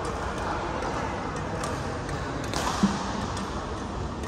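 Badminton hall ambience: steady room noise with faint, scattered shuttlecock hits from rackets, and one sharper, louder hit about three seconds in.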